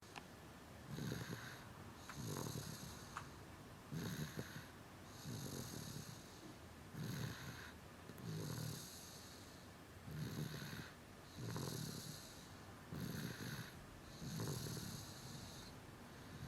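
A two-year-old girl snoring loudly in her sleep: an even run of snores, about one every one and a half seconds.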